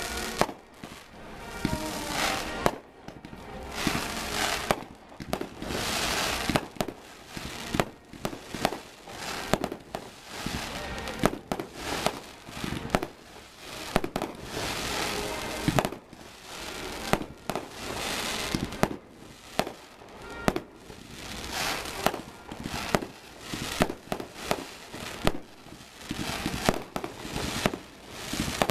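Aerial fireworks display: a dense run of sharp bangs from bursting shells, several a second, with stretches of crackling between them.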